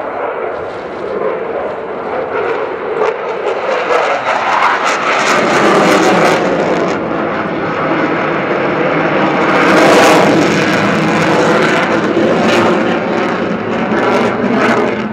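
Jet noise from an F-16 fighter's single engine, building over several seconds and at its loudest about ten seconds in as the jet passes, then easing slightly.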